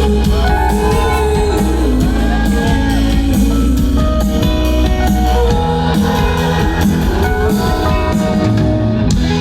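Live indie-pop band playing through a concert PA, with amplified guitar over steady bass notes and a beat.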